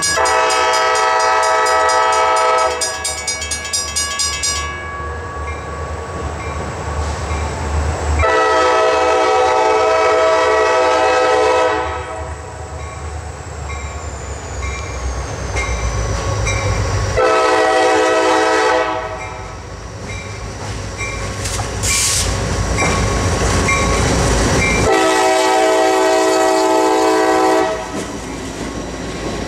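CSX diesel freight locomotive's multi-note air horn sounding the grade-crossing signal: long, long, short, long, with the first long blast already under way at the start. Between the blasts the diesel engines rumble, louder as the locomotives come past near the end.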